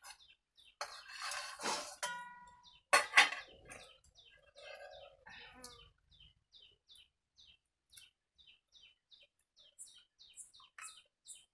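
A small bird chirping over and over in short high chirps, a few a second. About one and three seconds in, steel bowls and utensils clatter, the second knock the loudest sound, the first leaving a brief metallic ring.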